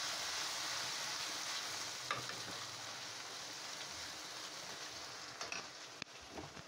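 A ground paste of ginger, garlic, coriander and cumin sizzling as it fries with onions in a pan, with a few scrapes of the stirring spoon. The sizzle slowly dies down.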